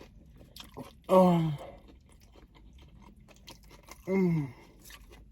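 A person chewing a mouthful of sandwich with soft wet clicks, letting out two loud, falling 'mmm' sounds of enjoyment: one about a second in, the other about four seconds in.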